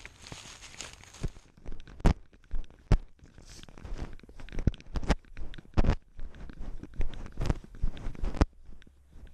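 Cat moving with a GoPro strapped to it: rustling steps through dry grass, then, about a second and a half in, irregular sharp knocks and scrapes as the cat crawls into the space under a wooden floor and the camera bumps against the ground and boards. The knocks stop near the end.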